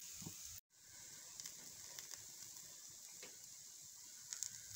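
Multigrain adai frying in oil on a non-stick tawa, sizzling faintly and steadily. The sound cuts out for a moment just after the start. Near the end there are a few light clicks as a spatula slides under the dosa to turn it.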